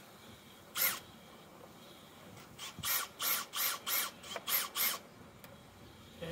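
Power drill run in short trigger bursts, once briefly and then in a quick series of about eight pulses, backing a screw out of the truck's plastic dashboard trim.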